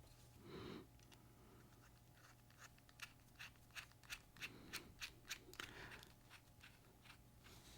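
Faint, small metallic clicks, about three a second for a few seconds in the middle, with light handling rustle, as the pivot of a Benchmade Foray folding knife is threaded and tightened with a small hand driver.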